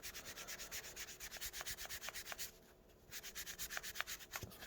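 A damp Magic Eraser (melamine foam pad) rubbed in quick, light back-and-forth strokes over a PS5 controller's plastic shell to scrub off grime. The scrubbing is faint and even, with a short break a little past halfway.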